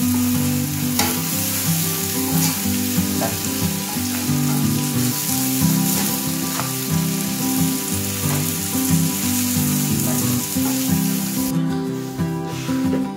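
Frog and banana-stem stir-fry sizzling in a steel wok, with chopsticks and a metal ladle stirring and clicking against the pan. Background music with low held notes plays throughout. The sizzle drops away about a second and a half before the end.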